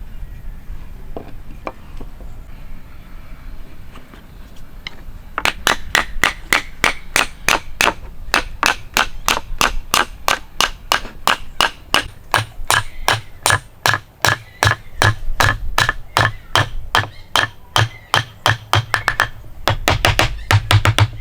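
Hammer striking rapidly and evenly, about five blows a second, each with a short metallic ring; the blows start about five seconds in and keep on to the end.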